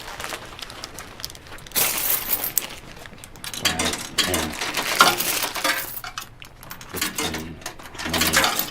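Nickels clinking as they are dropped one at a time into a vending machine's coin slot.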